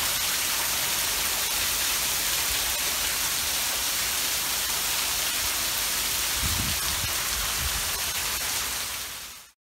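Heavy storm rain pouring down, a steady dense hiss, with a few low rumbles about six and a half to eight seconds in. It cuts off suddenly near the end.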